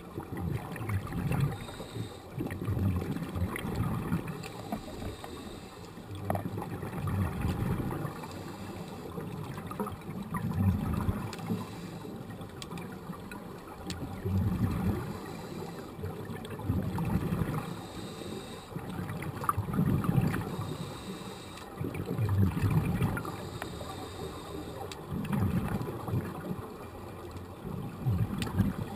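Muffled underwater sound of scuba breathing: bursts of exhaled regulator bubbles rumble and gurgle every few seconds.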